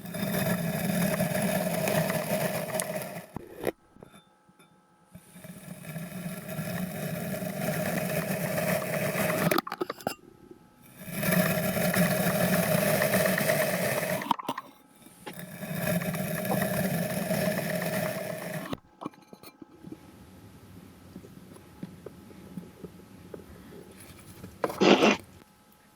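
Kinetic sand being cut and pressed, with a steady scraping, crunching noise in several separate clips of a few seconds each. The clips start and stop abruptly. A short louder burst comes near the end.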